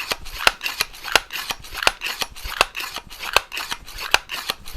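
Excellent C1 multi-pump air rifle being pumped rapidly: an even run of sharp clicks with a short rush of air, about three strokes a second.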